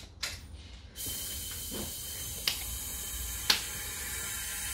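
Steady hiss of compressed air escaping from the pressurised turbo intake piping during a boost leak test, the sign of a boost leak. It starts suddenly about a second in, with a few sharp clicks over it.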